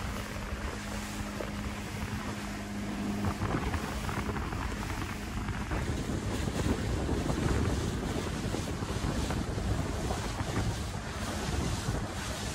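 Wind buffeting the microphone and water rushing past the hull of a small motorboat underway, with a steady engine hum underneath that is strongest in the first few seconds.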